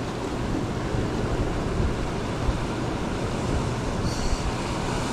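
Gusty wind buffeting the microphone, rumbling low and unevenly, over the steady wash of surf.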